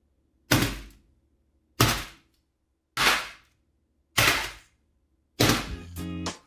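A claw hammer strikes a hardened sheet of blue sugar candy on a foil-lined baking tray five times, about a second apart. Each blow is a sharp crack with a short shattering tail as the brittle candy breaks.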